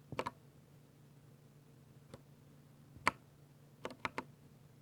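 Sparse keystrokes on a 60% Ducky mechanical keyboard with silver linear switches: a quick few presses at the start, single presses about two and three seconds in, and a run of three or four near the end.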